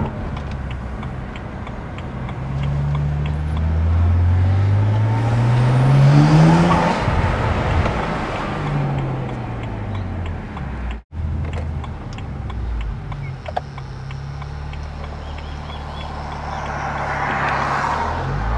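BMW N54 twin-turbo inline-six engine heard from inside the car, pulling up in pitch under acceleration for several seconds, then easing off. It drops out for an instant about eleven seconds in, runs steadily for a while, and starts climbing again near the end.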